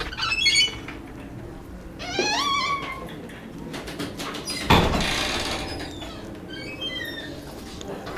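A cat's meow, one rising then wavering call about two seconds in, with short high chirps before and after it and a brief rushing burst in the middle.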